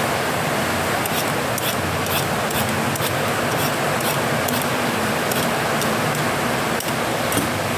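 Heavy rain pouring steadily, with short, irregular scraping strokes of a hand peeler taking the skin off a green papaya.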